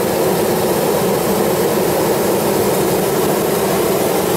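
Gas burner flame blowing hot air up into a large paper balloon, a steady loud rush of burning gas that heats it for lift-off.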